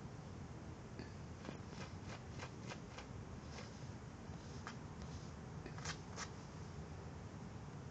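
A small dog nosing through short lawn grass: a string of short, irregular scratchy rustles and sniffs, the two loudest about six seconds in, over a low steady background rumble.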